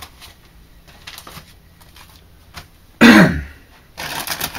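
A person clears his throat loudly once, about three seconds in. Then plastic wrapping rustles as a hand handles the bagged RC car body.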